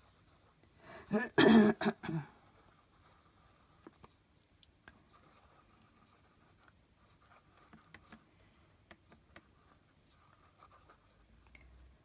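Light scratching, rubbing and small taps of hands working glue-covered paper flat on a desk, after a short, loud noisy burst about a second in that lasts about a second.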